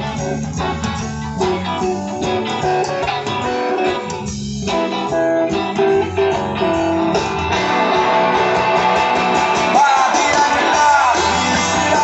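Live rock band playing during a soundcheck, electric guitar prominent. The full band comes in fuller and louder about seven seconds in.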